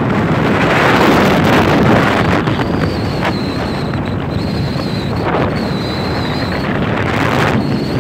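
Wind buffeting the microphone of a moving vehicle on a dirt road: a loud, steady rush with uneven gusts. A faint, wavering high whine comes in about three seconds in and drops out near the end.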